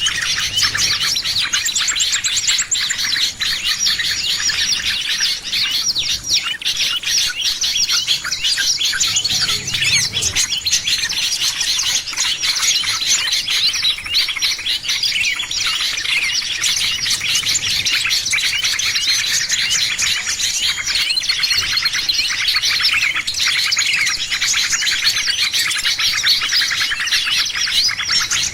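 Dense, unbroken chorus of many small songbirds chirping and twittering rapidly over one another: a lure call of the kind played to draw small birds in.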